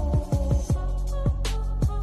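Background music: an electronic beat with deep kick drums that drop in pitch, a quick run of them in the first second and then sparser, over held notes.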